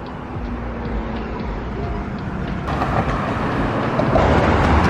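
Outdoor traffic noise: a rushing rumble that builds, loudest near the end, as a vehicle passes close by.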